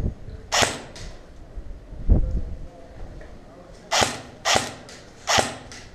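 Airsoft replica firing single shots: four short sharp pops, one about half a second in and three close together near the end. A dull thump comes about two seconds in.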